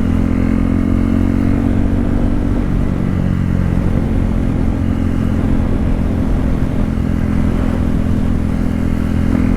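KTM Duke 390's single-cylinder engine running loud through its exhaust with the stock silencer removed, holding a steady speed while riding.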